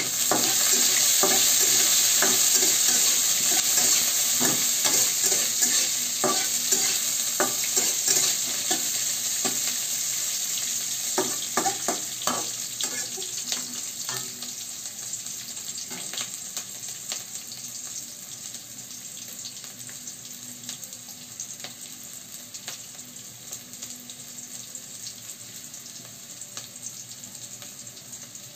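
Sliced onion sizzling in hot oil in an aluminium wok, stirred with a metal spatula that clicks and scrapes against the pan through the first half. The sizzle is loudest at the start and gradually dies down.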